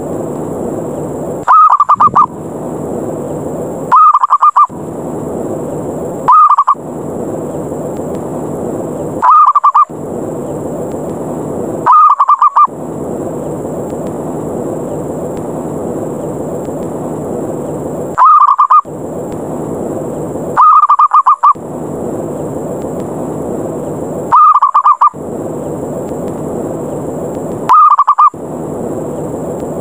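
Zebra dove (perkutut) lure call: short, loud, pulsed cooing calls repeated about nine times, every two to three seconds, with a longer pause midway. It is a challenging call meant to provoke other zebra doves into coming down. The calls sit over a steady background noise that drops out around each call.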